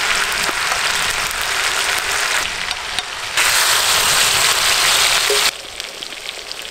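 Marinated chicken slices frying in hot oil in a large iron pan, the oil sizzling hard. The sizzle gets louder about three and a half seconds in, then drops sharply to a quieter level near the end.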